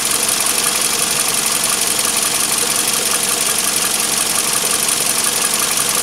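A steady mechanical running noise: an even drone and hiss with a faint constant hum and no distinct knocks or rhythm.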